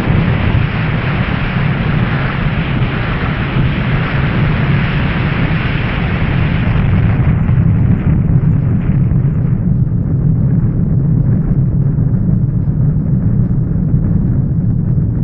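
Nuclear bomb explosion sound effect: a loud, continuous low rumble rolling on after the blast. The higher hiss fades away from about halfway through, leaving the deep rumble.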